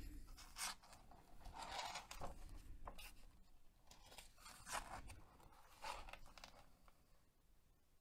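Pages of a sticker activity book being leafed through by hand: a series of short, soft paper rustles and scrapes that die away near the end.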